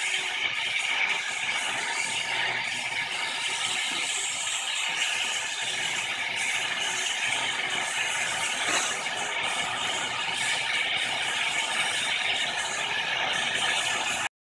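Oxy-fuel torch flame hissing steadily with faint irregular crackling as it heats a stuck rear brake rotor to free it from the wheel bearing hub. It cuts off suddenly near the end.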